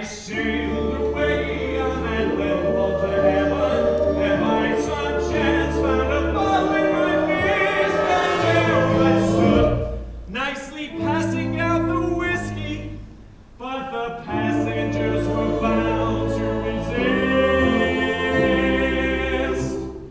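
A musical's stage cast singing a gospel-style show number in chorus over instrumental accompaniment. The singing breaks off briefly about ten seconds in and again a few seconds later.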